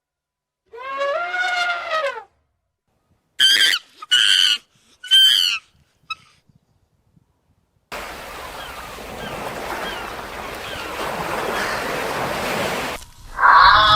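Animal calls: one drawn-out rising-and-falling call, then three short, sharp, high-pitched calls, followed by a few seconds of steady rushing noise.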